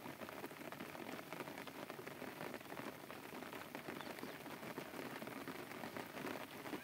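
Steady rain pattering, a dense crackle of fine drops.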